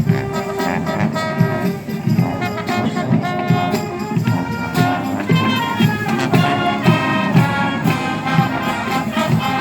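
High school marching band playing its field show: brass sustaining chords over a steady drum beat.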